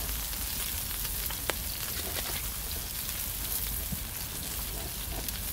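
Pork sizzling on a cast-iron cauldron-lid griddle (sotttukkeong) over a wood fire: a steady crackling hiss with a few sharp pops.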